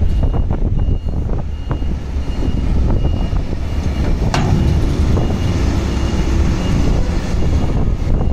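Doosan DA30 articulated dump truck's diesel engine running as the hydraulics lower the dump body. A faint beep repeats about twice a second through the first four seconds, and there is a short knock about four seconds in.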